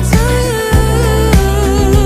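Background music: a pop or R&B song with a sung melody over a steady beat and bass.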